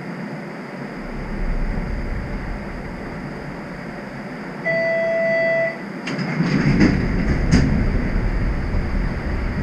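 Streetcar standing still, with a steady rumble and hiss. Midway comes a single steady electronic beep lasting about a second, then a couple of seconds of clunks and rattles.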